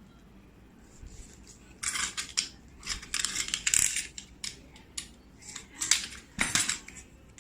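Packaging being handled and unwrapped, rustling and crinkling in irregular bursts with a few sharp clicks, starting about two seconds in.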